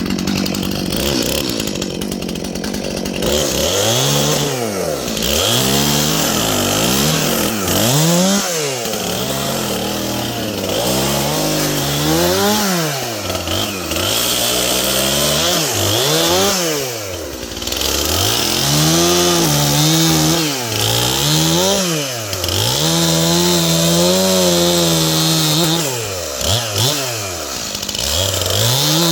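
Stihl MS 291 two-stroke chainsaw revving up and down over and over while cutting oak branches, its engine speed rising and falling about every one to two seconds, with a few longer held stretches in the second half.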